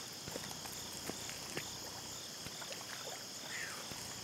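Steady high chirring of insects, with a few faint clicks and taps scattered through it.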